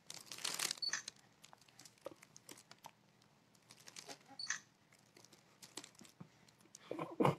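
Plastic sheeting crinkling and rustling under a baby as he moves and grabs at a frosted cupcake, mostly in small scattered crackles with a louder rustle just after the start. There is a short voice sound near the end.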